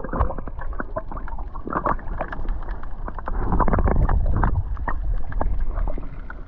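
Underwater sound through a camera held below the surface: a muffled low rumble of moving water with many small clicks and crackles scattered through it.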